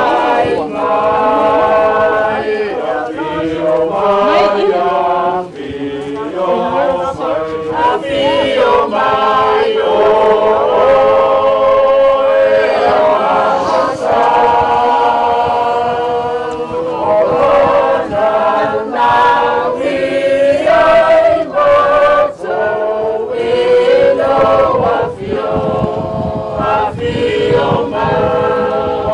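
A choir of mixed voices singing, unaccompanied, with long held notes.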